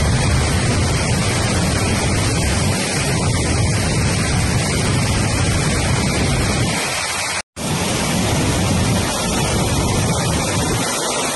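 Floodwater of the Krishna River below Prakasam Barrage rushing and churning in heavy, turbulent waves: a loud, steady rushing noise. It breaks off for an instant about seven and a half seconds in.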